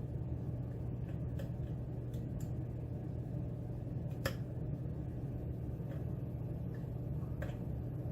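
A few small, sharp clicks of a hook pick and tension wrench working the pins of a pin-tumbler challenge lock, the sharpest about four seconds in and two close together near the end, over a steady low hum.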